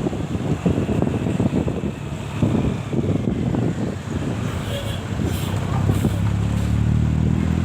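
Roadside traffic noise with wind buffeting the microphone. From about six seconds in, a passing vehicle's engine grows louder and steadier as it comes close.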